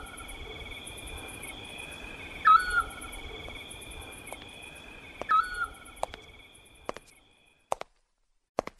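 Eurasian scops owl giving its short single-note whistle twice, a few seconds apart, over a steady chorus of night insects. The ambience fades out near the end, and a few sharp knocks follow.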